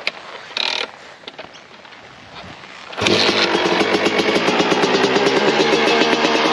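Freshly rebuilt 2007 Suzuki RM250 two-stroke dirt bike engine being kick-started. After a couple of short knocks, it catches about three seconds in and keeps running with a fast, even two-stroke beat.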